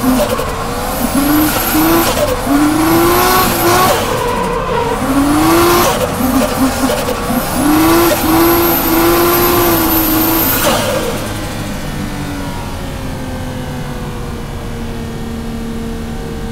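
Toyota JZX drift car heard from inside the cabin, its engine revs rising and falling again and again under hard throttle through the drift, with tyre squeal. About eleven seconds in it eases off to a quieter, steady engine drone.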